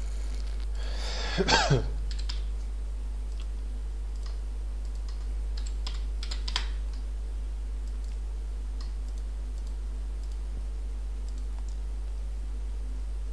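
Computer keyboard and mouse clicks, a few sparse soft taps as a date is typed into a form, over a steady electrical hum. About a second and a half in, a louder brief sound sweeps down in pitch.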